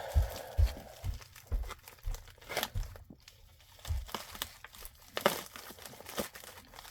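Packaging crinkling and rustling as items are handled, in irregular bursts, with a few soft thumps in the first few seconds.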